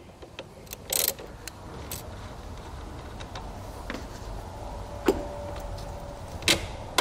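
Metal clicks and clinks from a ratchet wrench and the battery cable lugs being worked off the terminal stud of a car battery. A few sharp clicks stand out, the loudest about a second in and two more near the end.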